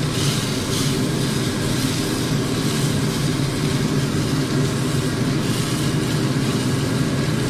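Beef steak and garlic cloves sizzling in oil in a frying pan, a steady hiss over a steady low mechanical hum.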